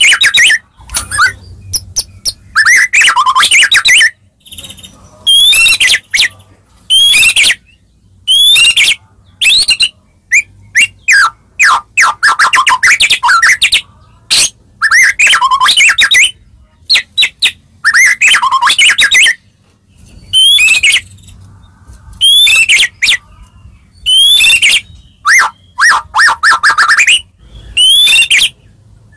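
White-rumped shama (murai batu) singing loudly: a run of varied whistled phrases, each about a second long, mixed with sharp clicks and rattles, repeated with short pauses every second or two.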